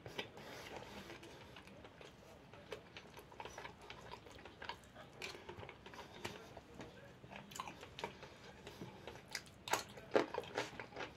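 A person chewing food close to the microphone, many small clicks throughout. Near the end come a few louder crunchy bites into a barrel-pickled cucumber.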